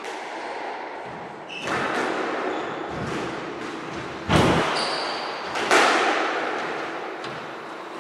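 A squash rally: the rubber ball cracking off rackets and the court walls in sharp, echoing knocks, the loudest about four and a half and six seconds in. Short high squeaks of court shoes on the wooden floor come between the shots.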